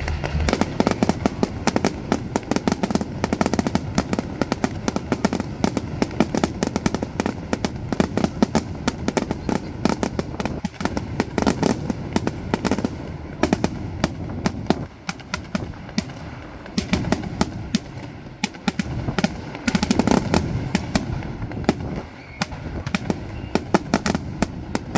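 Fireworks display going off: a dense, continuous barrage of rapid crackling bangs, with short lulls twice before it picks up again.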